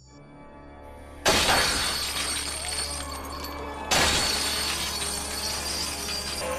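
Cartoon sound effect of glowing chakra chains shattering: a sudden crash about a second in and a second crash a little before the middle, each followed by a long glassy ringing, over background music.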